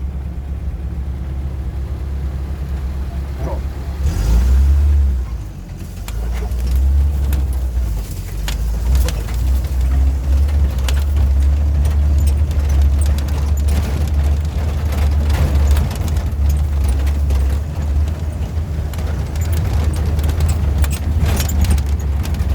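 Off-road vehicle engine running in a low gear, a deep steady drone, with a burst of louder noise about four seconds in and frequent knocks and rattles from about eight seconds on as it drives over rough ground.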